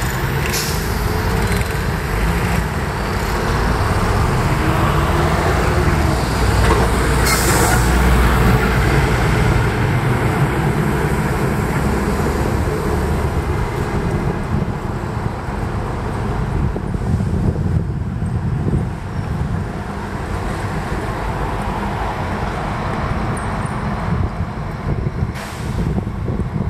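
City street traffic with a heavy vehicle's low engine rumble swelling and passing, loudest about a quarter of the way in. A short sharp hiss comes at the peak, and another near the end.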